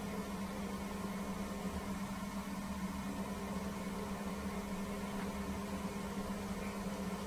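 Steady low hum with a faint hiss: background electrical and room noise in the recording, with no other sound.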